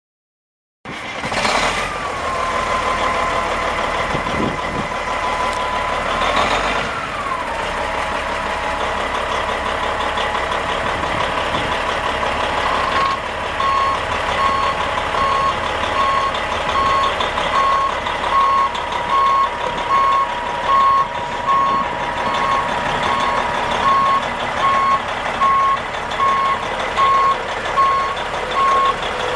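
Diesel semi tractor's Detroit Diesel Series 60 inline-six engine running as the truck moves slowly, with a steady whine that briefly rises twice in the first several seconds. From about halfway on, a backup alarm beeps steadily, about once a second, as the truck reverses.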